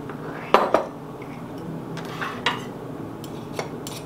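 Measuring spoon clinking against a glass jar and an enamel mixing bowl as baking soda is measured out: two sharp clinks about half a second in, two softer ones a little after two seconds, and a faint one near the end.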